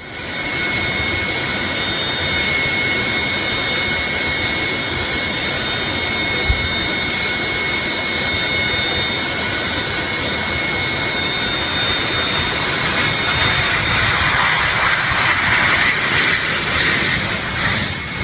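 Jet airliner's engines running, a steady loud rush with high, steady whining tones, growing a little louder for a few seconds near the end.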